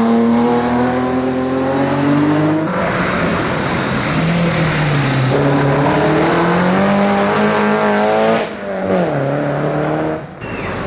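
Historic rally car engine at high revs, its pitch climbing through the gears, over a rush of tyre noise as the car slides. About eight seconds in the revs drop sharply as the driver lifts off, then the engine holds lower.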